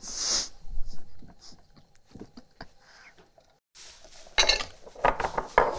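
Kitchen utensils being handled: a whisk tapping and scraping in a stainless steel saucepan and glass bowls clinking on a wooden board. Faint scattered taps at first, with louder, quicker clinks near the end.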